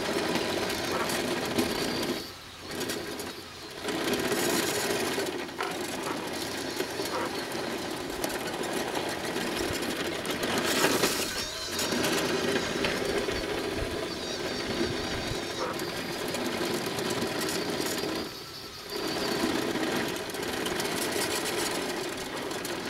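Scratch-built RC bulldozer's drive motors running steadily as it pushes a load of sand with its blade. The sound drops out briefly a few times when the drive stops, then picks up again.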